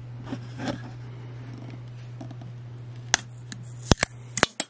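A thin metal pick scraping and prying at the plastic end cap of a Xiaomi aluminium power bank, over a steady low hum. From about three seconds in come several sharp clicks as the cap's clips pop loose and the cap comes off.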